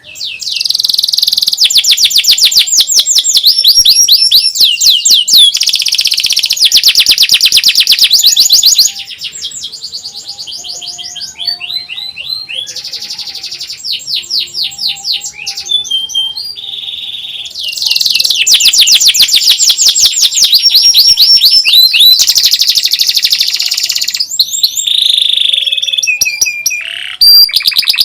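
Domestic canary singing long, loud runs of rapid high trills (nyerilik rolls). Each trill is a fast string of repeated notes, with a quieter, more varied passage in the middle.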